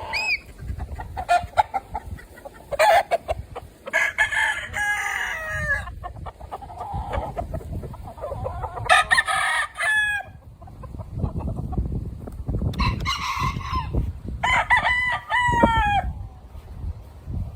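Gamefowl roosters crowing again and again, about six crows, some overlapping, with a steady low rumble underneath.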